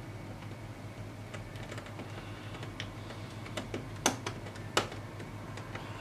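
Scattered light clicks and taps of a small screwdriver and a replacement power jack port being worked into place in an opened laptop's chassis, the two sharpest clicks a little past the middle.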